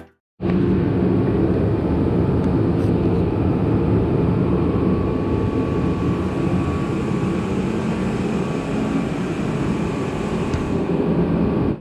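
Steady low rumbling noise of a machine running, with a faint steady tone above it.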